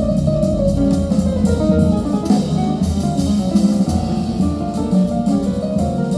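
Guitar-led music with bass and a drum kit, played back through horn loudspeakers in the room.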